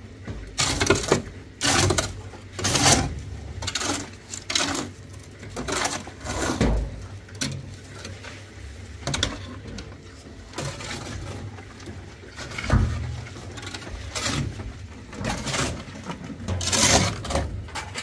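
Steel shovels scraping and scooping wet concrete, a rough scrape or knock every second or so at irregular intervals.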